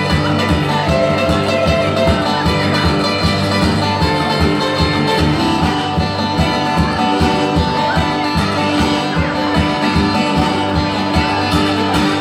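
Blues played on a metal-bodied resonator guitar, picked notes ringing over a steady foot-stomp beat of about three strokes a second.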